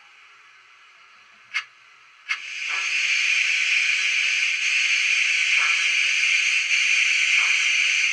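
Sound-fitted OO gauge Mogul model locomotive playing recorded steam sounds: a single sharp click about one and a half seconds in, then a long, steady steam hiss from about two seconds in, with a few faint softer puffs beneath it.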